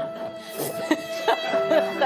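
Background music with long held notes, a lower note coming in about one and a half seconds in.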